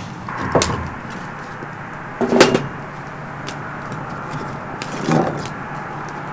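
Split firewood being handled and fed into a burning metal fire pit: a few hollow wooden clunks a couple of seconds apart, with small crackles from the fire between them.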